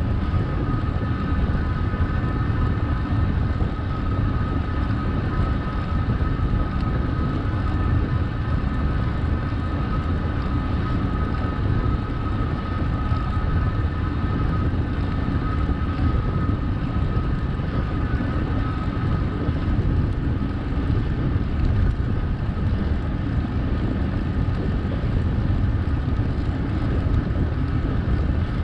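Wind rushing over the microphone of a moving bicycle, with a steady high whine underneath.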